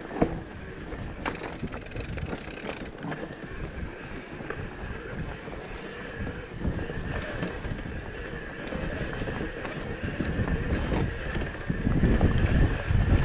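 Mountain bike rolling along a rough trail: tyre and drivetrain noise with scattered rattles and knocks, and wind buffeting the microphone, heavier near the end.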